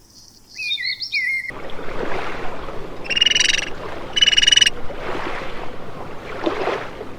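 Animal calls: a few short gliding chirps in the first second and a half, then two short pulsed calls about a second apart over a steady hiss of outdoor background sound.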